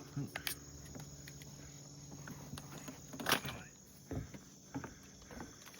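Insects chirping steadily in the background, with a few scattered sharp crunches; the loudest comes about three seconds in.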